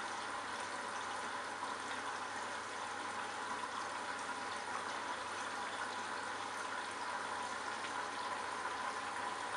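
Candy Bianca washing machine with water running through it: a steady watery hiss with a faint steady whine over it.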